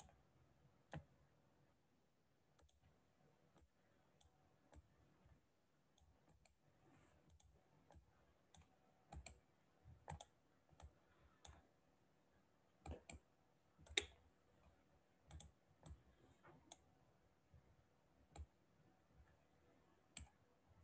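Faint, sharp clicks of a computer mouse and keyboard, coming irregularly and sometimes several a second, the loudest about two-thirds of the way through.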